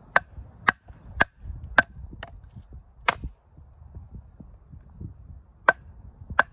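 Batoning: a wooden log baton striking the spine of a D2-steel fixed-blade bushcraft knife (Holtzman's Gorilla Survival Bushwhacker), driving the blade down through a piece of split firewood. The result is about eight sharp knocks, a quick run about half a second apart over the first three seconds, then two more near the end.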